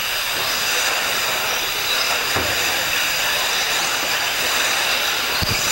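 Electric 1:8-scale off-road RC buggies racing on a dirt track: a steady hiss of motor and drivetrain noise with several high-pitched whining tones held throughout.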